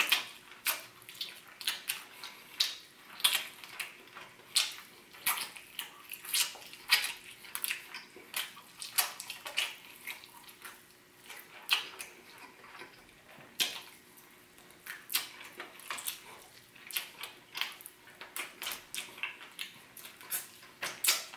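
Wet chewing and lip-smacking of a person eating roasted chicken off the bone, an uneven run of sharp smacks about one or two a second.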